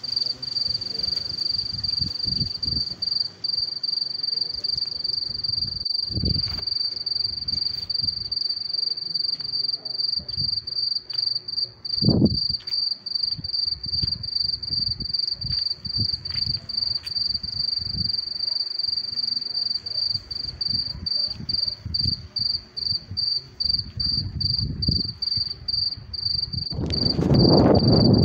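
An insect trilling without pause at one high pitch. Low rumbles of wind on the microphone come and go beneath it and swell into a louder rush near the end.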